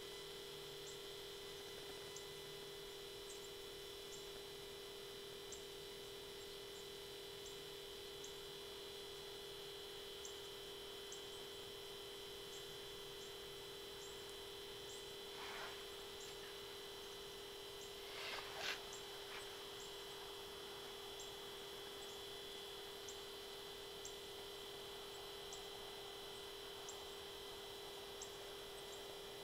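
Faint, steady electronic hum and whine with soft high ticks repeating about once every second or less, and two short scuffs about halfway through.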